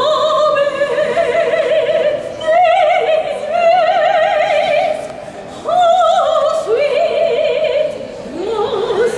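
A soprano singing solo in operatic style, with long held notes and wide vibrato. A short break comes about halfway through before the next phrase.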